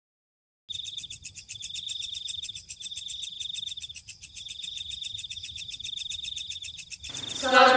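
Crickets chirping in a steady, fast-pulsing trill, starting about a second in. Near the end a louder voice breaks in over them.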